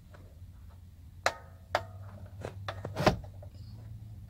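A few sharp clicks and knocks as hands work the Ford Super Duty instrument cluster and its shift indicator cable clip in the dash, over a low steady hum. One click about a second in rings briefly, and the loudest comes about three seconds in.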